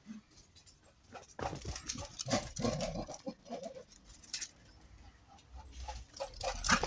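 Dog whining and whimpering in uneven spells, with a few sharp clicks.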